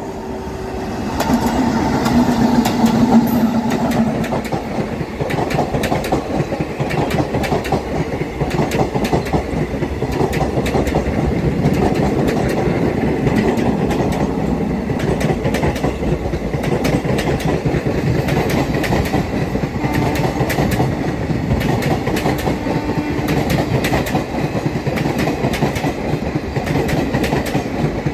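Electric-hauled passenger train passing close by. It is loudest as the locomotive goes by in the first few seconds, then the coaches give a steady rumble with rapid clickety-clack of wheels over rail joints.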